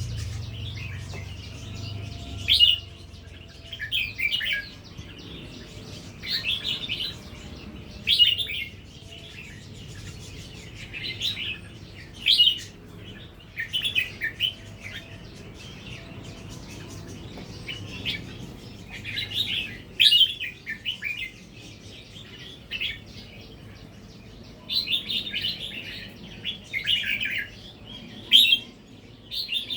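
Red-whiskered bulbul singing short, bright warbling phrases, one every second or two, with brief pauses between.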